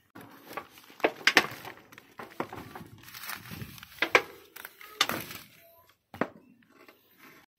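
Close rustling and crackling of plastic sheeting and eggplant leaves, with several sharp snaps and knocks, loudest about one second in and again around four, five and six seconds in.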